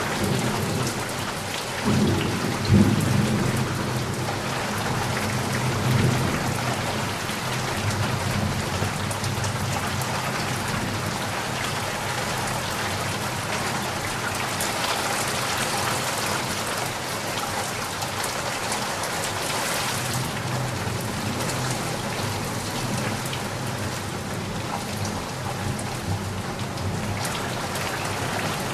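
Steady heavy rain, with low rolls of thunder rumbling a few times in the first several seconds.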